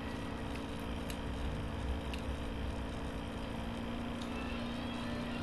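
Steady low hum with hiss underneath, a constant background drone with no distinct events apart from a few faint ticks.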